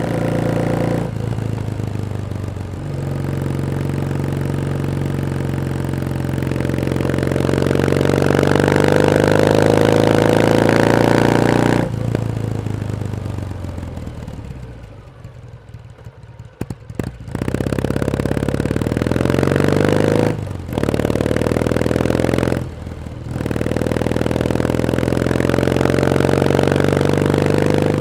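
Kawasaki W1S vertical-twin motorcycle engine on the road, its revs climbing steadily, then falling away sharply about twelve seconds in to a quieter stretch. It then pulls up again, with two quick breaks in the sound like upshifts before settling at a steady speed.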